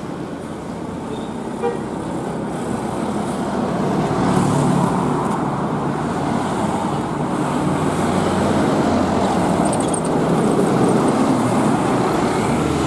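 A large bus engine running close by amid general traffic noise, getting louder about four seconds in.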